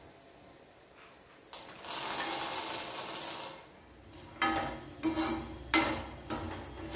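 Raw peanuts poured from a steel cup into an aluminium kadai, a dense rattle lasting about two seconds. Then a spatula stirs and scrapes the peanuts around the metal pan in several separate clattering strokes with a ringing tone, as they start to dry-roast.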